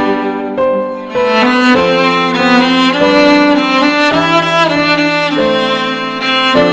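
Bowed string music: a violin melody of held notes, changing every half second to a second, over sustained lower string notes.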